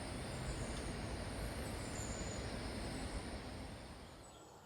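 Steady outdoor rushing noise at the shore, fading away over the last second or so.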